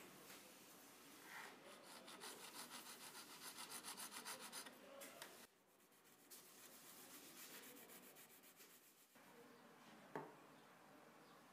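Faint, quick rhythmic rasping of a small saw cutting the brass pin flush on a straight razor's wooden handle, about five strokes a second. This gives way to hand-sanding of the pin end on abrasive paper. Near the end comes a single short clink.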